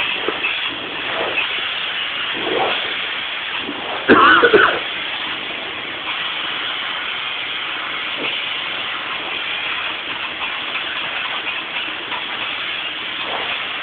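Gap Pro spray foam gun hissing steadily as it sprays foam insulation. A brief louder sound with a changing pitch about four seconds in.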